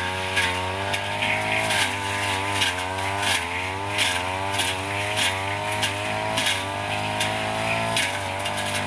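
Backpack brush cutter running at high revs while cutting through brush and woody stems. Its engine pitch dips and recovers again and again as the blade bites, with sharp cracks of stems and debris being hit.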